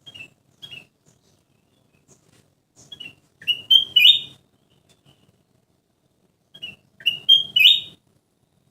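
Kutilang emas, a bulbul, singing: a few short chirps, then two loud phrases of quick notes that climb in pitch, about three seconds apart.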